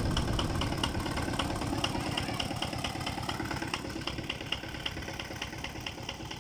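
Single-cylinder diesel engine of a two-wheel walking tractor running steadily as it pulls a trailer, with a fast chugging beat and a light regular tick, growing gradually fainter.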